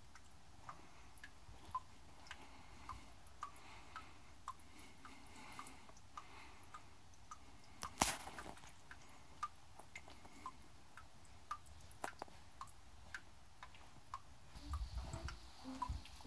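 Water drops falling one by one, small irregular plinks and ticks, with one louder click about halfway through. Low musical notes begin near the end.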